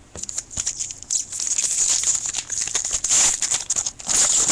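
Plastic-foil wrapper of a trading card pack crinkling and rustling as it is handled, a dense crackly rustle that builds about a second in.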